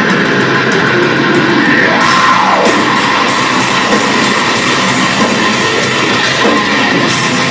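Live heavy metal band playing loud with distorted electric guitars and drums, as heard from the audience.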